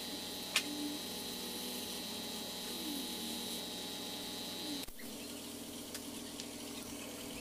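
Air spray gun hissing steadily as it sprays paint, with a sharp click about half a second in. A steady high whine runs under the hiss and cuts off suddenly nearly five seconds in.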